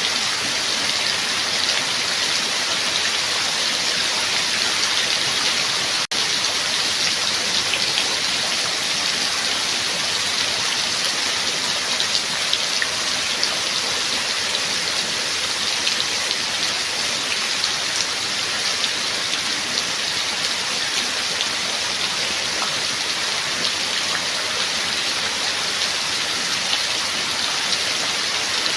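Steady rain falling, an even hiss with scattered drop ticks, broken by a momentary dropout about six seconds in.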